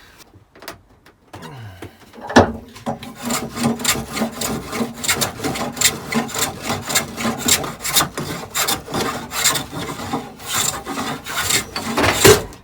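Hand plane shaving a pine board in a fast run of repeated strokes, with a sharp knock about two seconds in and another near the end.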